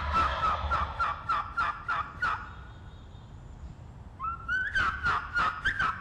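Wild turkeys calling at close range: a run of quick, evenly spaced notes, a short pause, then another run starting about four seconds in.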